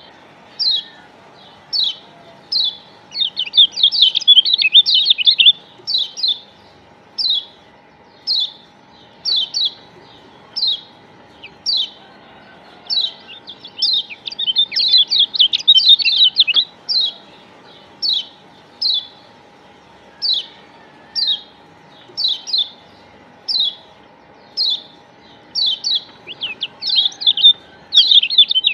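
Kecial kuning Lombok (Lombok yellow white-eye, a Zosterops) calling: short high chirps repeated about once a second. They break three times into fast twittering runs of song, about four seconds in, in the middle, and near the end. This is a lure recording (pancingan) played to set caged white-eyes singing.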